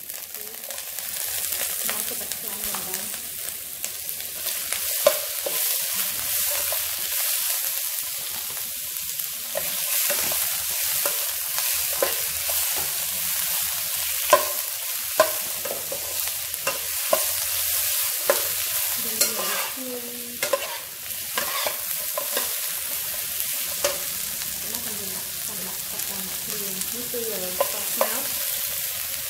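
Chicken pieces sizzling and frying in a non-stick wok with lemongrass and garlic, stirred with a metal spatula that scrapes and knocks against the pan. A steady frying hiss, with a few louder clacks from the spatula scattered through.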